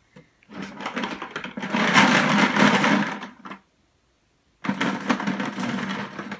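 Markers rattling and clattering as a hand rummages through them in a plastic 5-gallon bucket, loudest about two to three seconds in. The sound stops dead for about a second, then the rummaging rattle resumes.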